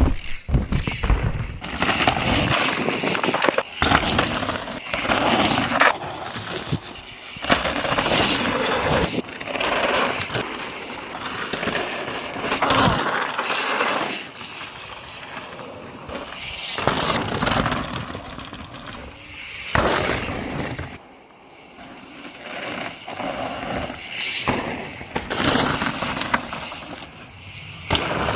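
Mountain bike riding over a rough trail: tyres on dirt and gravel and the bike rattling, coming in uneven surges every second or two.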